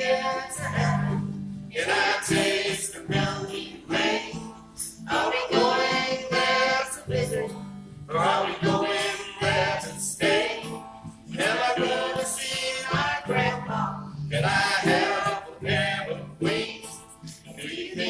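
A live gospel band performing a song, with sung vocal lines in phrases over instrumental accompaniment.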